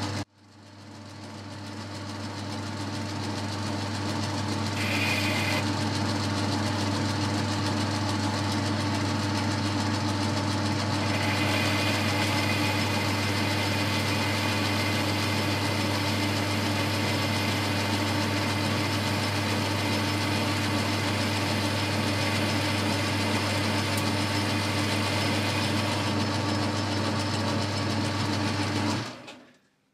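Boxford metalworking lathe spinning up to speed and running with a steady hum while an insert end mill, used as a boring bar on power feed, bores out a hole in the workpiece. A higher, hissy cutting sound joins in about a third of the way through and fades shortly before the lathe cuts off suddenly near the end.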